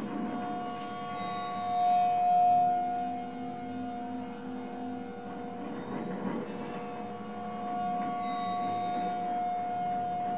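Improvised drone music from homemade instruments: several steady held tones layered together, the highest and strongest swelling louder about two seconds in and easing back, over a faint shifting low texture.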